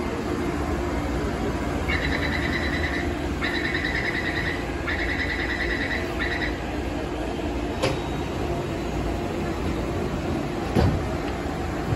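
Metro train standing at an underground platform with a steady low hum. About two seconds in, a high electronic beeping starts in four short runs over some four seconds, and two sharp knocks follow later.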